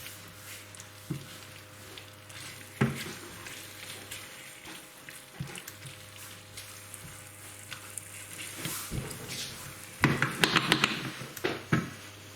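Chicken in curry base gravy sizzling in a pan on the hob, with one knock about three seconds in and a quick run of utensil clatters near the end.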